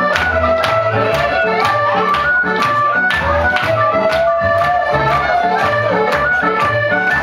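Live ceilidh band playing a Scottish dance tune, the melody led by accordion over a steady beat of about two strokes a second.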